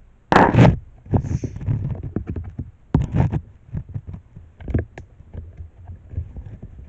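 Rubbing, rustling and knocking right against the microphone as the recording device is handled and its lens covered. The loudest burst comes about half a second in, followed by irregular scrapes and sharp clicks.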